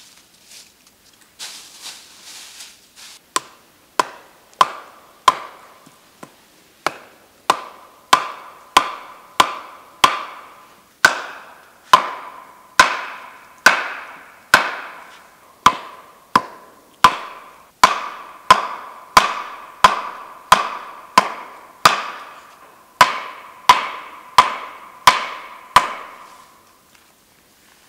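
Steady hammering, about one and a half blows a second, each a sharp knock with a short ringing tone. The first few blows are lighter and uneven, then they settle into an even rhythm.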